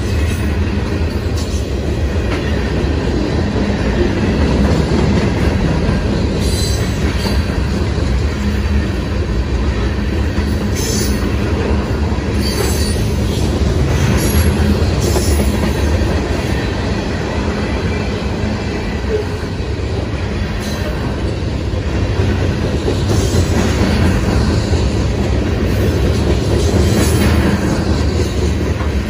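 Freight train's covered hopper and tank cars rolling past close by, a steady heavy rumble of wheels on rail with brief high-pitched wheel squeals now and then.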